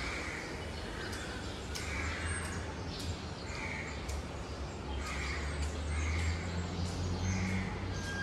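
Crows cawing, harsh calls repeating about once a second, over a low steady hum.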